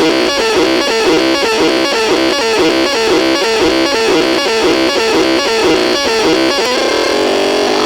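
MOTROLAX FIX XB COMBO electronic sound module playing a repeating synthetic tone pattern, about two cycles a second, that switches to a different wavering tone near the end.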